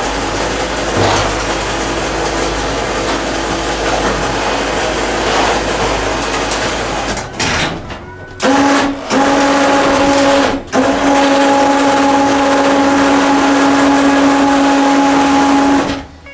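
An electric motor whirring, then running with a steady whine from about halfway through, cut off briefly twice and stopping just before the end.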